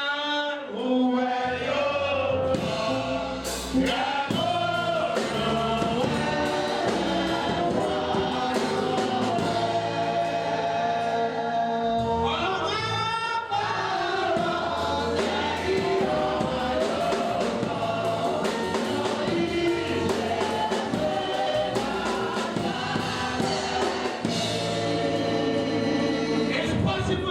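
Gospel music: a choir singing over instrumental backing with a steady bass.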